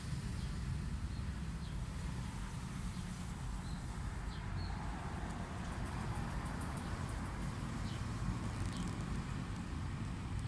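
Outdoor background noise: a steady low rumble with a hiss that swells in the middle, and a few faint high bird chirps.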